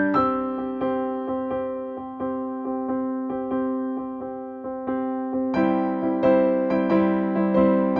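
Background music: a gentle piano melody in even repeated notes, growing fuller and louder about two-thirds of the way through.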